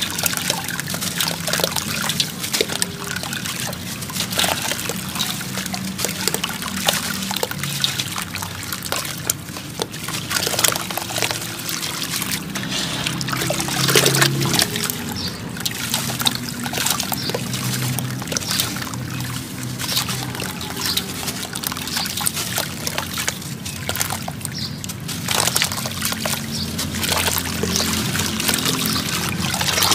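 Chunks of dry sand-cement crumbling into a basin of water, with hands scooping, squeezing and sloshing the wet mix: a steady run of splashing and trickling.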